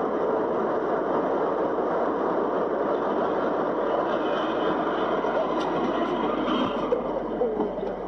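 Steady road and engine noise inside a car travelling at highway speed, picked up by its dashcam, with a few short clicks near the end.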